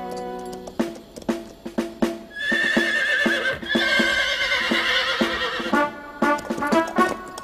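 Cartoon Western soundtrack: music over a steady clip-clop beat of trotting hooves, with a horse whinnying in a long wavering call, broken once, through the middle.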